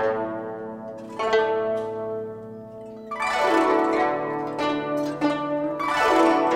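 An ensemble of guzheng, Chinese plucked zithers, playing together: plucked notes ring out and fade near the start and about a second in, then louder sweeping runs across the strings about three seconds in and again near the end.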